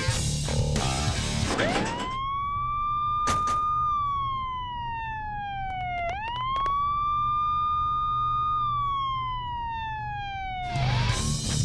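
Police car siren wailing: the tone rises, holds high, slides down, then rises, holds and slides down again. A sharp knock sounds a little after three seconds in. Guitar rock music plays at the start and comes back near the end.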